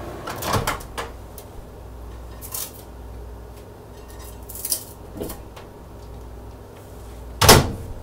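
Microwave door and bowls being handled: a few light clicks and knocks, then one loud thud near the end, as warmed bowls of oatmeal are taken out of the microwave.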